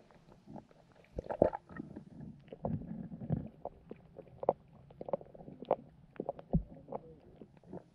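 Underwater sound of carp and goldfish around a submerged camera: an irregular scatter of sharp clicks and knocks, loudest about a second and a half in, with a low bumping a little before the middle.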